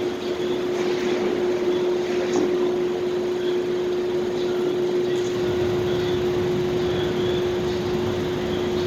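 Steady parking-area ambience: a constant mechanical rush with one held hum tone, and a few faint ticks.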